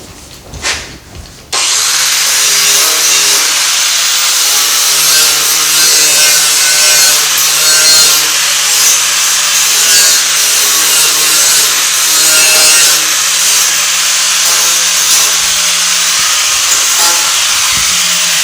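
Small electric sander running against a sheet-metal patch panel. It starts suddenly about a second and a half in and runs steadily, a grinding hiss over a low motor hum.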